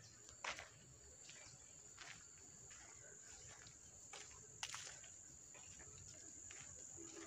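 Near silence outdoors: a faint, steady, high-pitched insect drone, with a few soft clicks.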